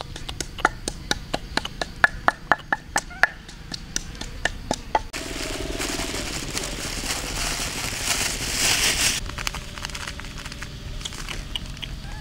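A quick run of sharp knocks, about four a second, for the first five seconds. Then a loud hissing rustle for about four seconds, and lighter clicking near the end.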